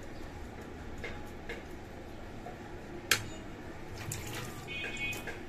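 A metal spoon clicking against a china plate a few times, the sharpest click about three seconds in, over a steady background hiss. A brief high-pitched tone sounds near the end.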